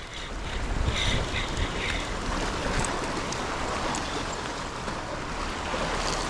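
Ocean surf washing steadily, with wind blowing across the microphone.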